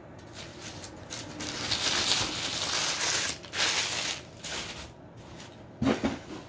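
Rustling and crinkling handling noises in a few stretches, with a short vocal sound about six seconds in.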